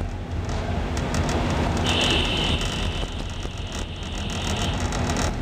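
Steady low rumble of a ship's engines and the sea on an open aft deck. From about two seconds in to near the end, a steady high hiss sounds over it.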